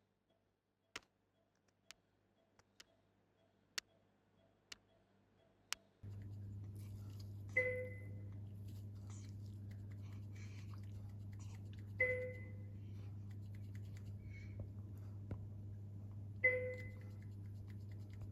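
Near silence broken by a few sharp clicks. About six seconds in, a steady low electrical hum starts, and a patient monitor's electronic alert chime rings out three times, each tone dying away, roughly every four and a half seconds.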